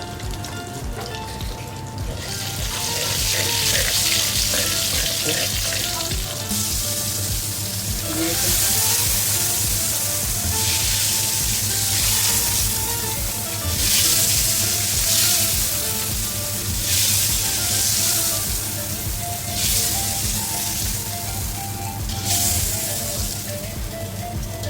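Whole spices and curry leaf sizzling in hot oil for a tadka, a dense hiss that comes in about two seconds in and swells and eases again and again as the pan is worked.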